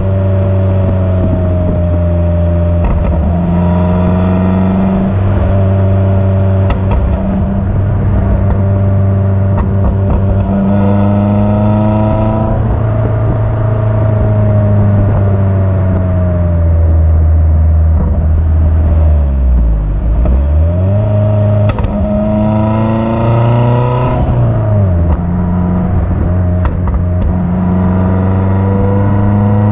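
Lotus Elise S3 1.6's four-cylinder engine and exhaust under way, the revs climbing under acceleration and dropping at the gear changes. There is a sharp fall in pitch about twelve seconds in and again near twenty-five seconds, and about twenty seconds in the revs dip low and climb back.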